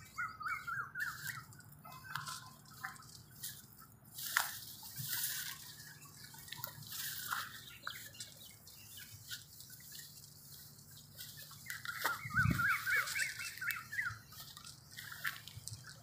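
Leaves and stalks of a tall crop rustling and crackling as someone pushes through it on foot, with small birds chirping in quick bouts near the start and again about three-quarters of the way through. A single low thud sounds about twelve seconds in.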